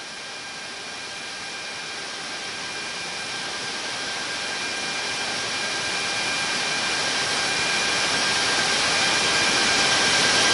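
Kawasaki P-1 patrol aircraft's turbofan engines droning steadily in the cabin: a rushing noise with two thin steady whining tones, growing gradually louder.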